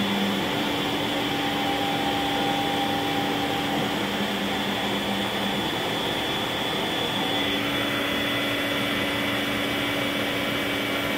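CNC Tensilkut III tensile-specimen milling machine cutting a wood composite blank behind its closed shield: a steady whine and cutting noise. The pitch of the whine shifts about seven seconds in as the cutter moves along the profile.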